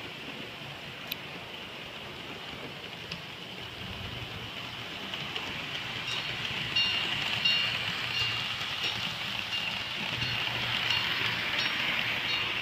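Model train running on a layout's track: a steady rushing noise that grows louder over the first half, with short repeated high squeaks from about six seconds in.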